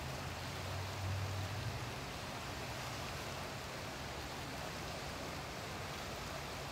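Steady, even rushing noise, with a faint low hum in the first two seconds.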